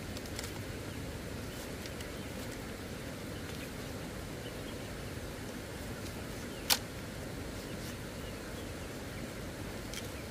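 Split-bamboo strips being woven by hand into a flat panel: faint light clicks and rustles over a steady background hiss, with one sharp, loud clack of bamboo a little past halfway through.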